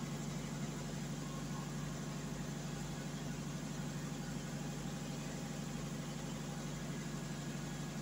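Steady low mechanical hum with an even background noise, unchanging throughout; the generator's own engine is still stopped, waiting to crank.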